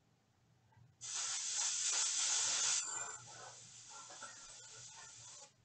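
Airbrush hissing as it sprays paint: the air comes on about a second in, strong for nearly two seconds, then softer until it cuts off near the end.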